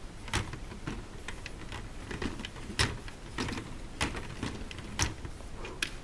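Lego carousel being turned by hand: a string of sharp plastic clicks and knocks from its crank and gears, roughly one or two a second.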